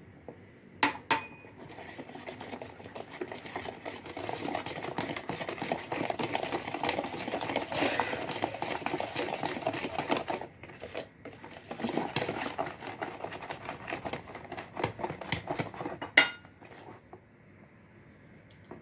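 A utensil beating cake batter in a mixing bowl, with rapid, uneven clattering against the bowl's sides after the milk has gone in. It ends with a single loud ringing clink, like the utensil knocked against the bowl's rim.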